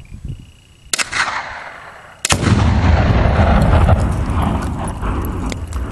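A single gunshot about a second in. About a second later a second shot sets off the Tannerite charge: a loud explosion whose low rumble and echo fade slowly over the next few seconds.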